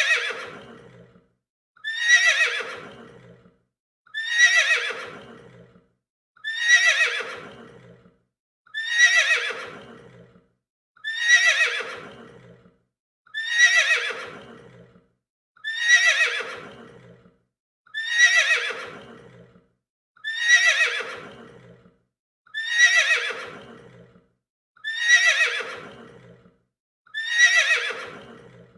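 Horse neighing: the same whinny repeats about every two and a quarter seconds, a dozen times over. Each call starts high, falls in pitch and trails off into a short silence.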